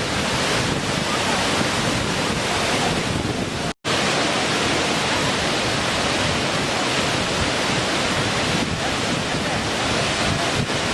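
Small waterfall splashing and rushing steadily, a dense even noise that drops out for an instant about four seconds in.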